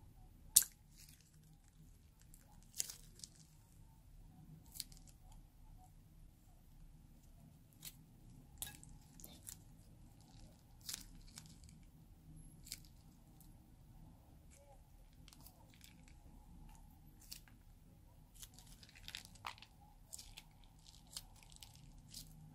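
Slime being squeezed out of small plastic bags into a glass bowl: scattered soft squelches, crinkles and short clicks over a faint low hum, with one sharp click about half a second in.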